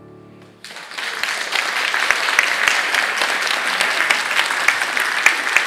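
The last ringing note of the music fades out, then a concert audience starts applauding less than a second in and keeps clapping steadily.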